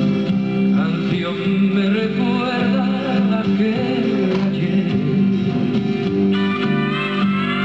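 A man sings a slow ballad in Spanish into a handheld microphone, with acoustic guitar accompaniment.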